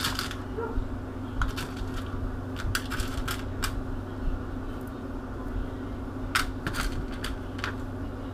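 Small metal fishing tackle being handled: scattered light clicks and clinks, a cluster about three seconds in and several more near the end, over a steady low hum.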